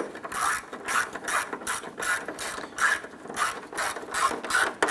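Hand socket ratchet clicking rapidly, about four clicks a second, as its handle is swung back and forth to run a screw in.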